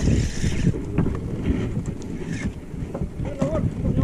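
Wind buffeting the microphone in gusts on an open boat at sea, with a short burst of hiss at the start.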